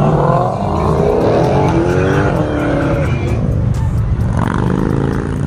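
Ford Mustang convertible doing a burnout: loud engine revving high, the revs climbing and dropping again and again, with the rear tyres squealing on the pavement.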